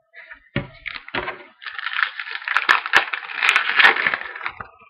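Crinkling and rustling of plastic packaging or card sleeves as a trading card is handled, after a couple of light knocks at the start; the crinkling is dense, with sharp crackles in it.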